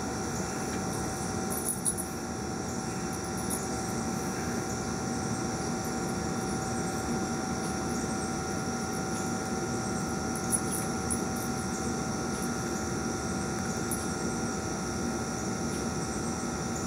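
Steady mechanical hum over a noisy background, with a few faint steady whining tones, like a machine running continuously; a couple of brief faint clicks stand out.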